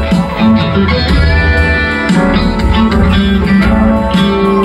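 Live rock band playing an instrumental passage, electric guitar to the fore over the band.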